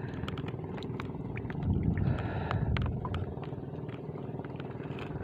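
Steady rush of wind and choppy water around a small wooden outrigger boat, swelling a little about two seconds in, with scattered light ticks throughout.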